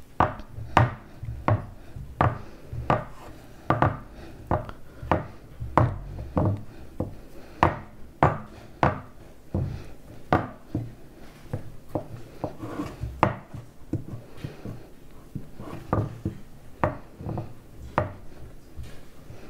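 Hands pressing crumbly shortcrust dough firmly into a metal quiche tin: a run of short, irregular knocks, a little over one a second.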